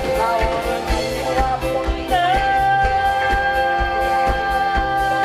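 A woman singing a pop song live with a band over a steady drum beat; about two seconds in she settles into one long held note with vibrato.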